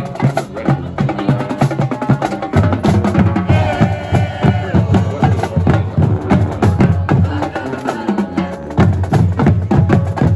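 Marching band playing a stand tune, with drums keeping a fast, steady beat under the horns. The low bass notes drop out for about two seconds near the start and briefly again near the end.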